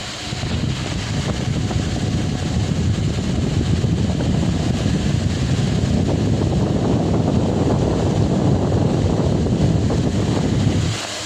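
Delta Gold 50 cm wall fan running, its airstream buffeting the microphone as a loud, low, rough rushing. It sets in at the start and drops back to the plain fan hum near the end.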